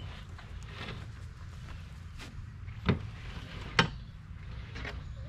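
Two short, sharp knocks a little under a second apart, over a steady low hum, with a few fainter clicks around them.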